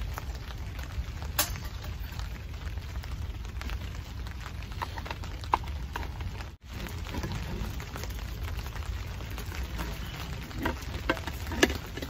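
Steady rain with scattered sharp crackles and pops from a small wood fire in a camp stove. The sound drops out for an instant about two-thirds of the way through.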